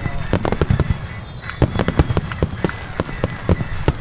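Aerial fireworks bursting in quick succession: a dense, irregular run of sharp bangs and crackles over a low rumble.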